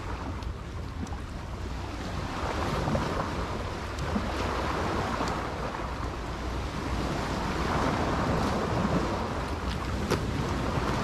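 Small waves washing against a rocky, oyster-covered shoreline, with wind buffeting the microphone as a low rumble. Near the end a few sharp clicks come from boots stepping on the shell-covered rock.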